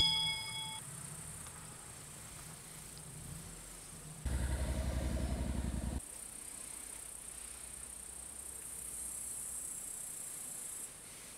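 Crickets chirping faintly as a steady high hiss that grows a little near the end. About four seconds in, a low buzzing hum starts suddenly, lasts a couple of seconds and cuts off just as suddenly.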